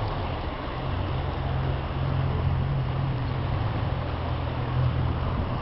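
A motor vehicle engine running steadily nearby, a constant low hum over street noise; no siren sounds.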